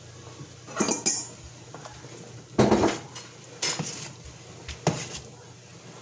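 Metal slotted spoon clinking and scraping against a stainless steel stockpot while stirring a pot of soup: several separate knocks, the loudest a little under three seconds in.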